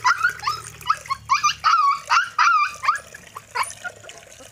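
Sulawesi dog puppy whining and yelping while wet from its bath: a rapid string of short, high cries, a few drawn out, that stops a little before the end.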